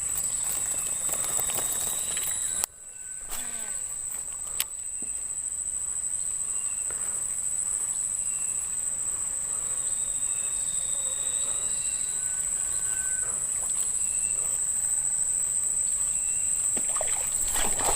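Steady high-pitched insect drone, with short bird chirps now and then. The sound drops away suddenly about three seconds in, and there is a single sharp click about a second later.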